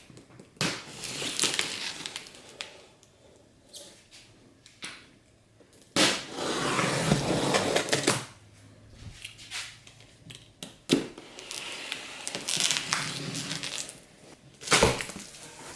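Packaging being handled during an unboxing: cardboard, foam and plastic rubbing and rustling in irregular bursts, the longest about six seconds in, with a couple of sharp knocks.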